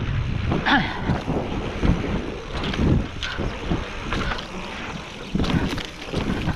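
Mountain bike riding fast down a dirt trail: wind buffeting the microphone and tyres rumbling over the dirt, with irregular clatters and rattles from the bike as it goes over bumps.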